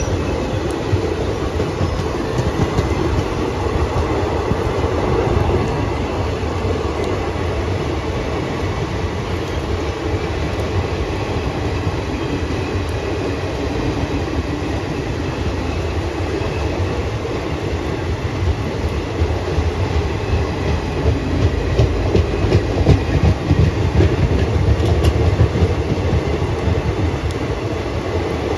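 Passenger train coaches rolling slowly past on the adjacent track: a steady rumble of wheels on rail with scattered clicks, a little louder toward the end as the last coaches go by.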